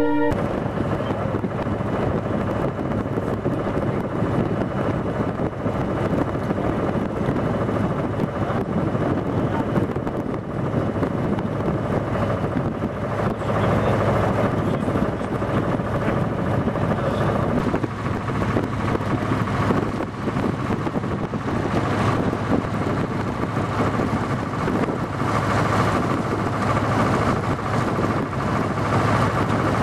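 A tour boat's engine running steadily with a low hum, under the rush of wind and water, with wind buffeting the microphone.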